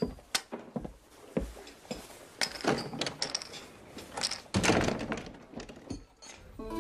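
A run of wooden knocks and thuds, with a door shut hard about four and a half seconds in.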